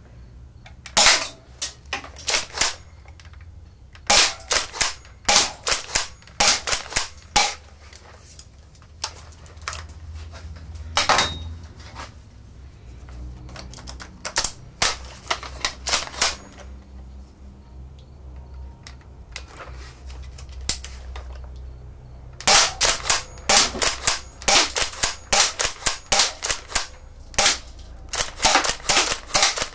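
Spring-powered Double Eagle M58A airsoft pump shotgun being pumped and fired again and again: sharp snapping shots and clacks of the pump action, with BBs hitting the aluminium soda cans. The shots come in bursts with pauses between them, fastest and densest near the end.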